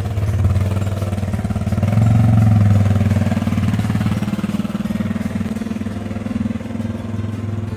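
Suzuki DR650's single-cylinder four-stroke engine running with a fast, even pulse as the loaded motorcycle pulls away. It is loudest about two seconds in, then fades as the bike rides off.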